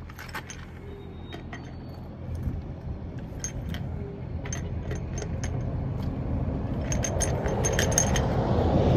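Sharp metal clinks of a wrench on a trailer wheel's lug nuts as they are checked for tightness, coming irregularly and bunching together near the end. Under them runs a low rumble that grows louder toward the end.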